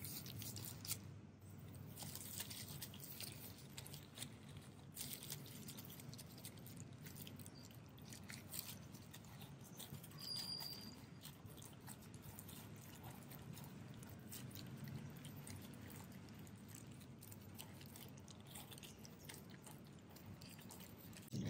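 Faint food-preparation handling sounds: irregular small clicks and crackles, with a short high tone about ten seconds in, over a steady low hum.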